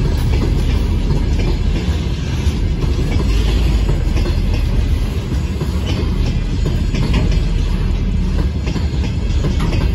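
Freight train of open gondola wagons rolling past close by: a steady heavy rumble, with the wheels clacking over rail joints every second or two.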